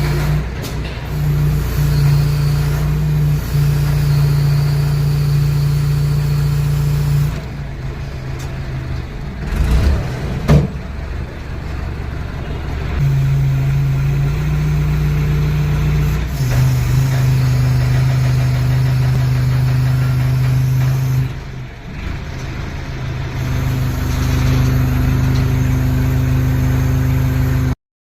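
Crane's engine running steadily, its speed stepping up and down several times as it works, with a short knock about ten seconds in.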